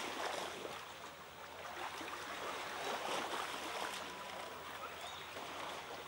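Steady rushing of water in a shallow rocky pool, with light splashing from a spotted seal pup swimming at the surface.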